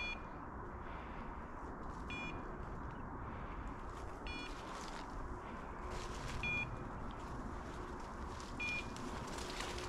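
A dog's electronic beeper collar gives a short electronic beep about every two seconds. This is its point signal, showing the dog is standing on point.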